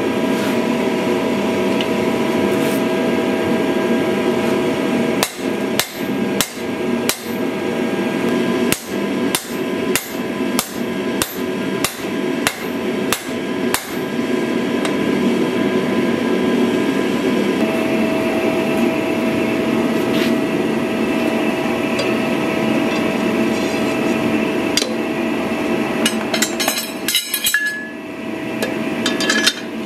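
Hand hammer striking red-hot steel on an anvil: a run of about twenty blows, roughly two a second, from about five to fourteen seconds in, over a steady loud rushing noise. A brief clatter of metal comes near the end.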